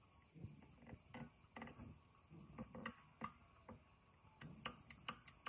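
Irregular small clicks and taps of metal tools and parts being handled, ending in a quick run of five or six sharper clicks.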